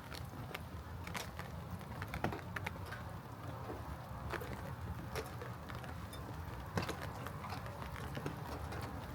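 Light rain: scattered, irregular ticks of raindrops, a few louder than the rest, over a steady low rumble.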